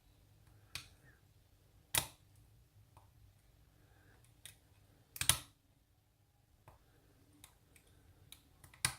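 Scattered sharp metallic clicks and taps of lock-picking tools and a tension wrench working in a challenge lock, with a loudest cluster of clicks about five seconds in.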